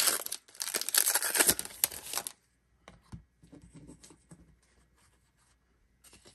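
Two 2021 Donruss Optic baseball card pack wrappers torn open and crinkling, loud for about the first two seconds. After that, quieter scattered rustles and clicks as the cards are handled.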